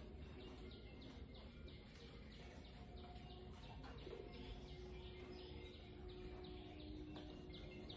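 Faint bird chirping, a few short falling chirps a second, over quiet room tone.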